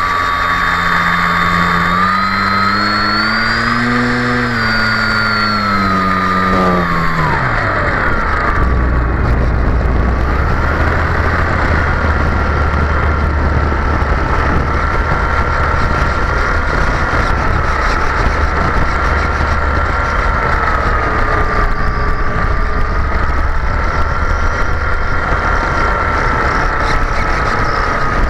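RC model airplane's motor and propeller heard from a camera on board, with wind rushing over the airframe. The motor note rises and falls, then drops away sharply about seven seconds in as the power is cut back, leaving a steady thin whine over the wind rush.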